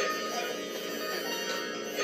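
Electronic music built from sampled sounds, with several held pitched tones layered together.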